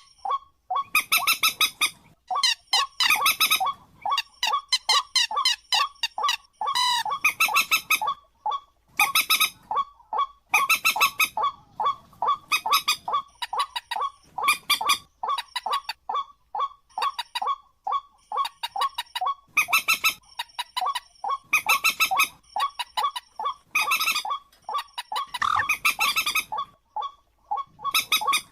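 A bird calling over and over: runs of quick, harsh, pitched notes, broken by short pauses.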